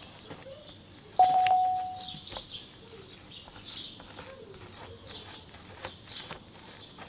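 A single bell-like ding about a second in: one clear ringing tone that fades out over about a second. Behind it, faint scraping as a cut garlic clove is rubbed over crusty ciabatta.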